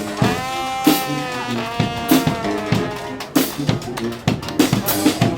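A street brass band playing, with brass horns over a steady beat of snare and bass drums.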